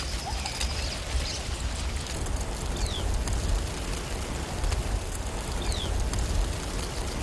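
Dense, steady rustling whir of a huge locust swarm in flight, over a low rumble. A few short, high, falling chirps cut through it about a second in, near three seconds and near six seconds.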